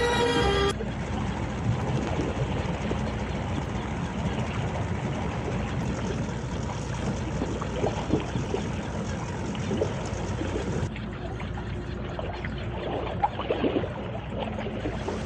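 A small motorboat's engine running as the boat moves through the harbour, a steady low hum under splashing water and outdoor noise. There are a few light knocks near the end. The tail of background music cuts off just under a second in.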